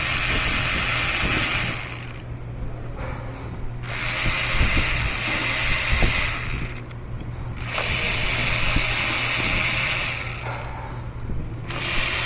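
Electric ratchet with a T30 Torx socket spinning out the ignition coil bolts of a Mercedes S550's 5.5-litre V8. It runs in four bursts of two to three seconds each, one per bolt, with short pauses between them.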